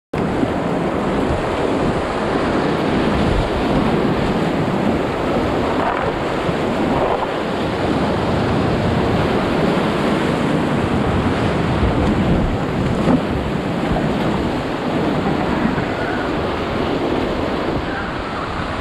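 Whitewater rapid rushing and splashing around a kayak, loud and steady, with wind buffeting the microphone.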